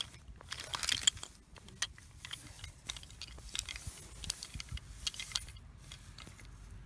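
Light, irregular clicking and rattling of small toys being moved about, a little busier in the first second and again about five seconds in.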